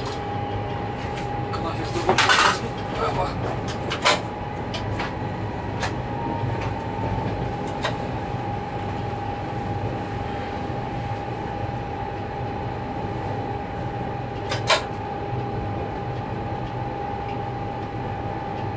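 Diesel locomotive running, heard from inside its cab: a steady low drone with a constant high whine over it, and a few sharp knocks and clunks, the loudest about two seconds in and another near fifteen seconds.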